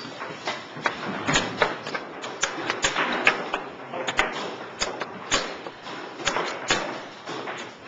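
Chess pieces clicking and knocking on a board, an irregular series of sharp taps a few times a second over low room murmur.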